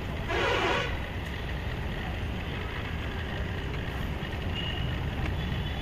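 Car engine idling with a steady low rumble, and a short hiss about half a second in.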